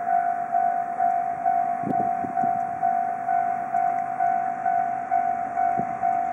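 Railway level-crossing alarm ringing, an electronic bell tone repeating about twice a second, as a train approaches. A few low knocks from the train's wheels on the rails come about two seconds in and near the end.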